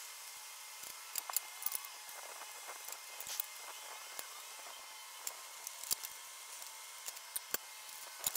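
Scattered light metallic clicks and clinks as galvanized steel dolly panels and loose bolts are handled and fitted together by hand, at irregular intervals with the sharpest ones about a second in and again near the end.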